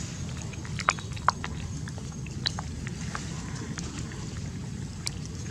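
Long-tailed macaques picking and grooming at a person's hand: scattered small clicks and taps, two sharper ones about a second in, over a steady low rumble.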